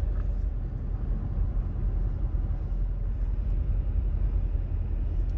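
Steady low rumble of a car heard from inside its cabin as it creeps forward in slow traffic.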